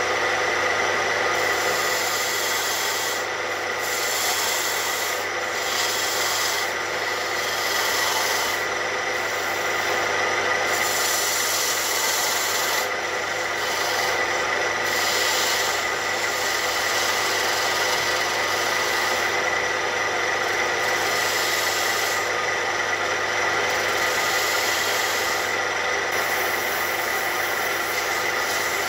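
Wood lathe running with a steady motor whine while a homemade parting tool, ground from a metal-cutting hacksaw blade, scrapes into the spinning wooden workpiece. The cutting hiss comes and goes in short passes of a second or two.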